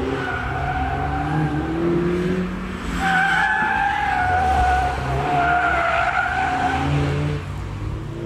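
Volkswagen Golf R's tyres squealing as it corners hard on a circuit, over the low running of its turbocharged 2.0 TSI four-cylinder engine. The squeal grows loudest about three seconds in.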